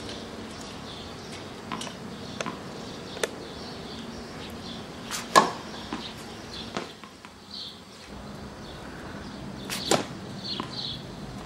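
Tennis racket striking the ball on serves: two sharp hits about four and a half seconds apart, the first the loudest. Lighter taps of the ball being bounced on the hard court come before the first serve.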